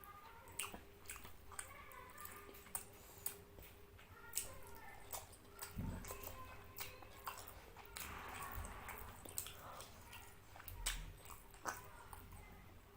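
A person chewing a mouthful of fish curry and rice close to the microphone: wet mouth smacks and sharp clicks come every second or so, with a few soft low thumps.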